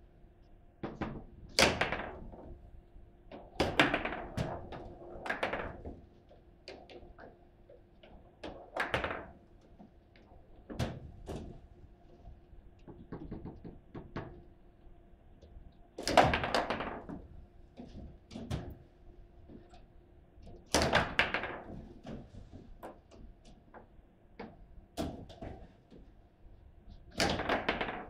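Foosball table in play: the ball struck by the plastic players and rods knocking against the table, in irregular sharp knocks and thunks with a few loud slams. A faint steady hum runs underneath.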